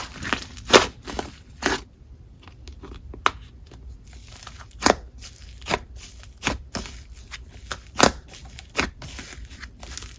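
Hands squishing and stretching a soft, slightly sticky matte clay-like slime, giving irregular sharp clicks and small pops.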